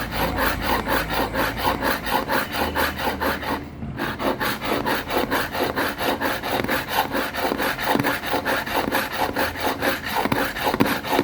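An old knife blade is drawn again and again through the sharpening slot of a Misamo manual pull-through knife sharpener. Each pass makes a scraping stroke, about four a second, with a brief pause about four seconds in.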